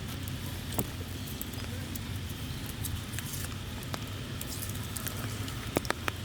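Scattered sharp clicks and crackles, like dry leaves and twigs being stepped on or handled, over a steady low hum; a few clicks come in a quick cluster near the end.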